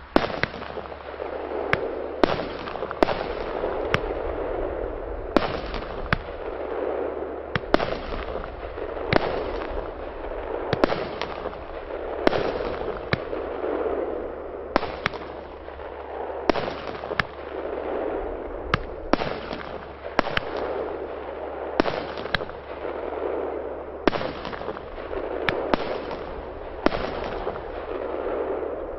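A 16-shot fireworks battery (cake) firing shot after shot: sharp pops about once a second over a continuous rushing hiss from the rising comet tails.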